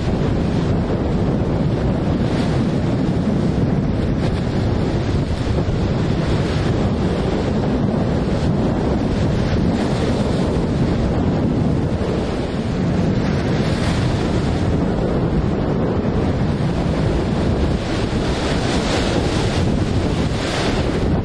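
Storm waves breaking and washing in a rough sea, with storm-force wind buffeting the microphone in a heavy low rumble. Hissing surges of surf come every few seconds.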